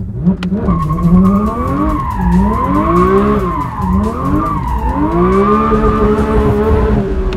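Porsche sports car engine heard from inside the cabin, accelerating hard: its pitch climbs and then drops sharply several times as it shifts up, then holds and slowly rises near the end.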